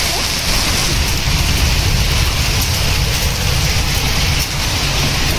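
Heavy rain mixed with hail falling and pattering steadily on the ground, with a constant low rumble underneath and a few faint ticks of hailstones striking.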